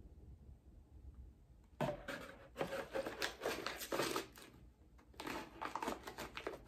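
Small clear plastic bag crinkling and rustling as it is handled and tucked into a jewelry box, in two spells of quick crackles starting about two seconds in.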